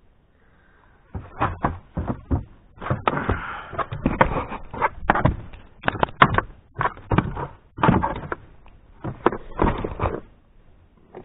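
A pike thrashing in a landing net on the floor of an inflatable boat: a run of irregular thumps and slaps with scuffling of the net. It starts about a second in and stops shortly before the end.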